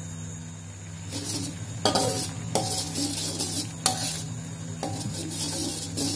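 Metal spatula stirring and scraping blended turmeric spice paste in a stainless steel wok, with three sharp clinks of the spatula on the pan. The paste sizzles and bubbles as it cooks down without oil. The stirring starts about a second in.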